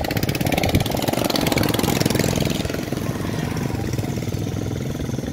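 Small motorcycle engine running close by, a steady rapid beat that eases a little toward the end.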